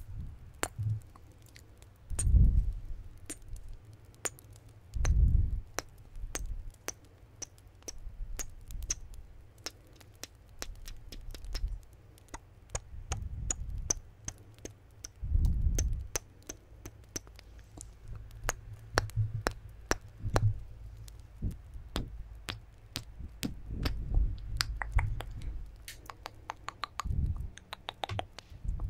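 Close-miked ASMR mouth sounds: quick, irregular wet clicks and pops, several a second, with a soft low thump on the microphone every few seconds.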